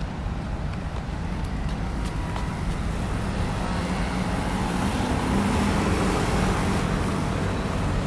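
Road traffic at a busy city intersection: cars and motor scooters running past in a steady rumble that grows slightly louder in the second half.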